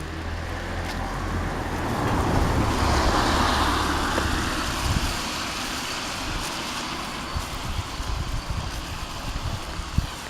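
A road vehicle passing, its noise swelling to a peak about three seconds in and fading away, with wind buffeting the microphone.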